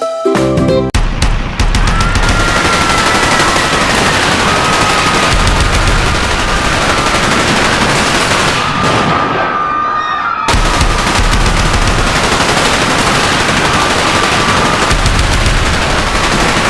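Loud, continuous rapid gunfire, like sustained machine-gun fire, with a faint wavering tone above it. It breaks off briefly about ten seconds in and cuts off abruptly at the end.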